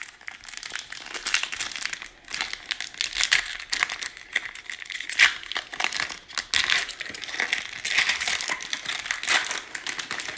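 Foil wrapper of a Panini Prizm basketball card pack crinkling and crackling as it is pulled open by hand and the foil is peeled back, a dense run of irregular crackles throughout.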